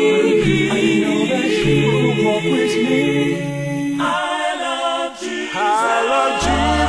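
Unaccompanied vocal group singing a spiritual in close harmony, several voices at once with bass voices holding low notes beneath. About four seconds in the low voices drop out while the higher parts carry on, and a deep bass note returns near the end.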